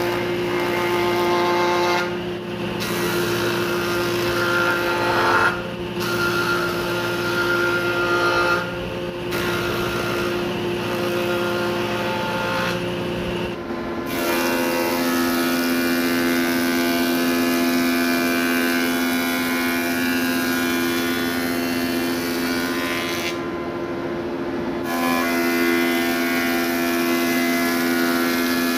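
A table saw running and ripping a thick timber beam. About halfway through it gives way to a thickness planer running and planing a timber board fed through its cutterhead.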